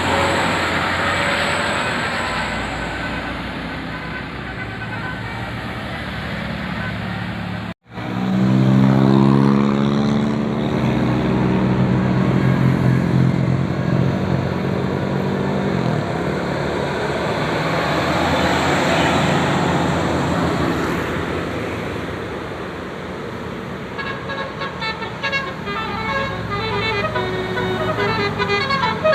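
Roadside traffic, then a large bus's engine droning loudly as it passes. Near the end a 'telolet basuri' multi-tone musical bus horn starts playing a quick tune of short stepped notes.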